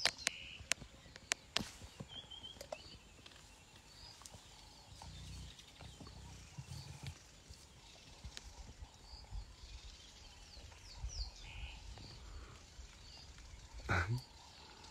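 Quiet bush ambience: birds chirping faintly here and there, with a few sharp clicks in the first two seconds and a brief louder sound near the end.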